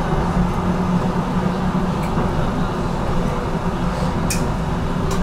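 Inside an HTM GTL8 tram running along the track: a steady low rumble of wheels and drive with a hum, broken by a few sharp clicks.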